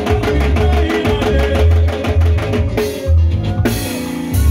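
Live band music: a drum kit keeping a steady beat over a heavy, pulsing bass, with a keyboard part held on a repeated note.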